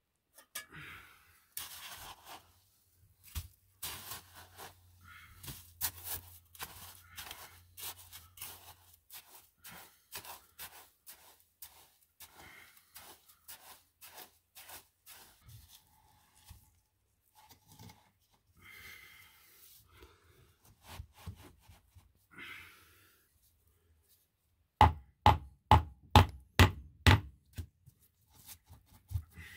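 Schist floor stones being handled and knocked into place: scattered clicks and knocks, then near the end a run of about ten hard blows, two or three a second.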